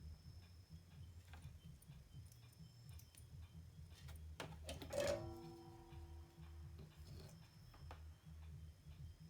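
Light clicks of small parts and tools being handled at a workbench over a steady low hum; about five seconds in a small metal object strikes something and rings briefly, fading over a couple of seconds.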